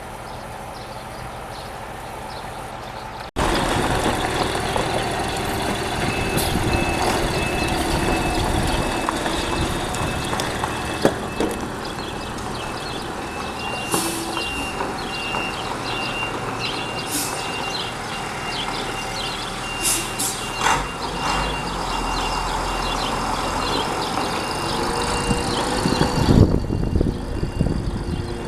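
Volvo B58 bus's diesel engine running steadily, with a high, rapidly pulsing electronic beep sounding through most of it and scattered clicks and knocks.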